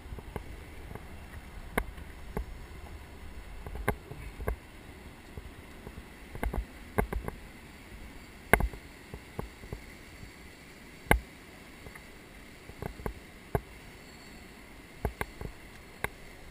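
Kayak on a river: a steady rush of water with irregular sharp knocks and splashes, the loudest about a third and two thirds of the way through.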